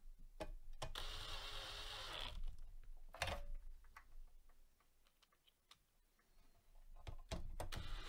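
Cordless drill driver running for about a second and a half as it drives a small hard drive screw into the drive bracket, then a second short burst just after three seconds in. Light clicks of handling the drill and screws come around it.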